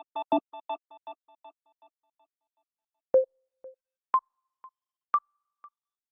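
Samsung Galaxy A12 (One UI 5.1) ringtones. A repeating electronic melody fades away about two seconds in. After a short gap comes a new tone: single electronic beeps about once a second, each at a different pitch and each followed by a quieter echo.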